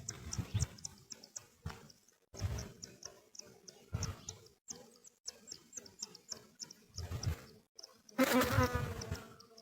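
Insects chirping in short, high-pitched pulses a few times a second, with scattered low thumps. About eight seconds in there is a louder cry of about a second, with several tones.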